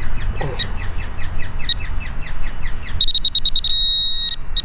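Handheld metal-detecting pinpointer probed into a pile of dug soil: about three seconds in it gives a rapid run of high beeps that runs into a steady tone for under a second, then beeps again. This means it has found the metal target in the dirt.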